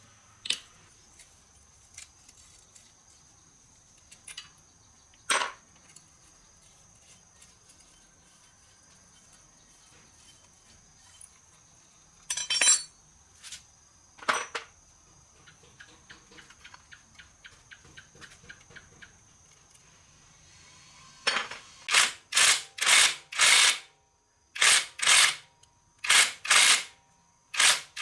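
Scattered clicks and knocks of tools and metal parts being handled, then, about three quarters of the way through, a run of short, loud noisy bursts, about two a second, with a brief pause in the middle.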